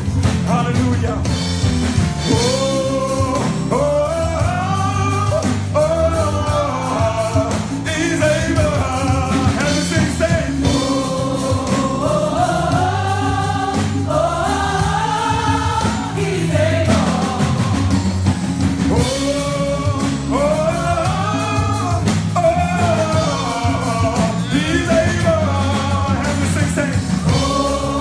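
Live gospel music: a choir and a male lead singer singing through microphones over instrumental backing, continuous and loud.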